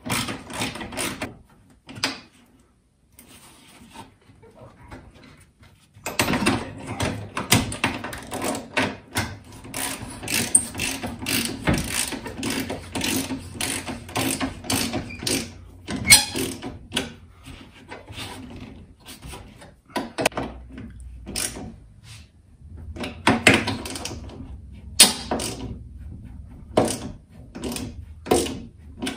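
Socket ratchet wrench clicking in fast runs as the bolts of the radiator's upper U-shaped clamp are tightened down, with a quiet gap of a few seconds near the start.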